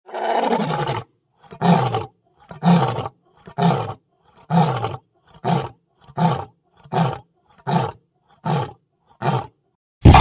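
A big cat roaring: one long roar, then a run of about ten short grunting roars that get shorter and closer together. A loud, steady noise cuts in suddenly at the very end.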